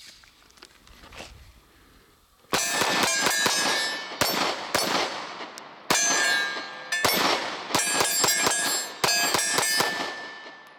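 Ruger SR9c 9mm compact pistol fired in several rapid strings of shots starting about two and a half seconds in, each string leaving a metallic ring.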